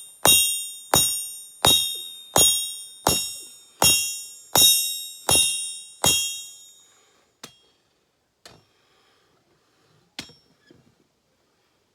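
Forging hammer striking steel on an anvil in a steady rhythm, about three blows every two seconds, each blow leaving a clear metallic ring. The nine blows stop about six seconds in, followed by three lighter single taps.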